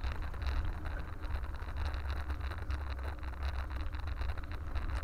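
Wind buffeting the microphone of a camera on a moving bicycle, with a steady run of small rattles and ticks as the bike rolls over brick paving.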